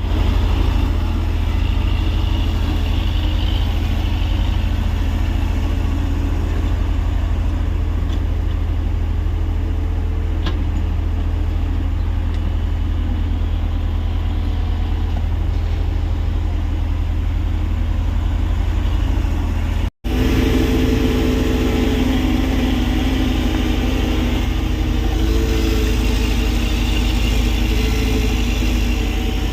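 Tata Hitachi EX70 hydraulic excavator's diesel engine running steadily under load, with a deep hum and a busier, harsher tone after a brief break about two-thirds of the way through.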